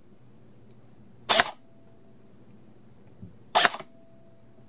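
Open airsoft AEG gearbox, driven through a MOSFET fire-control circuit by a 9.6 V NiMH pack, cycling once per trigger pull in semi-auto: two short mechanical clatters of motor, gears and piston, a little over two seconds apart. Each time the sector gear stops in the same spot, the sign of a consistent cycle completion.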